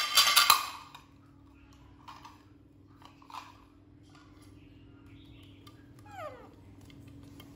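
A plate clattering and rattling on a tile floor as it settles, stopping about half a second in. After that, a steady low hum and a short squeak falling in pitch about six seconds in.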